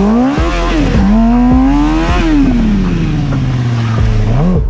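Small stunt motorcycle's engine revving as the bike is slid round: the pitch climbs twice, peaks about two seconds in, then falls away slowly, with a short blip near the end. A hiss of tyre scrubbing on asphalt runs under the engine.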